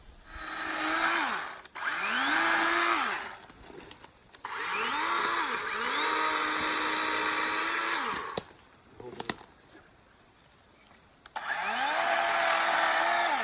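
DeWalt 20 V XR brushless battery chainsaw revved in five short trigger pulls. Each time the motor whine climbs quickly, holds steady for one to two seconds and winds down when the trigger is released, with a pause of about three seconds before the last pull.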